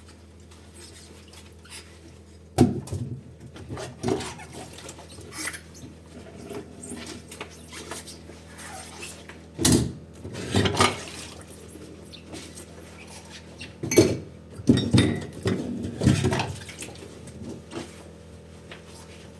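Dishes and cutlery being handled in a sink during hand washing: scattered clinks and knocks in short clusters, several seconds apart, over a faint steady low hum.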